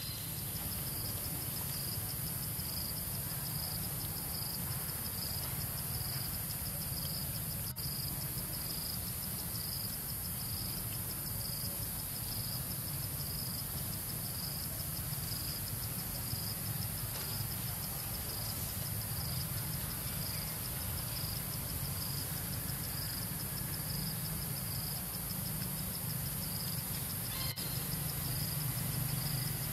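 Insect chorus in forest: a steady high-pitched hiss with a short chirp repeating about twice a second, over a low steady hum.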